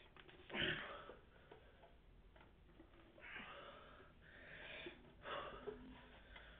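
A man breathing hard with effort as he bends two frying pans with his bare hands: a sharp forceful exhale about half a second in, drawn-out hissing breaths in the middle, and another sharp exhale a little after five seconds.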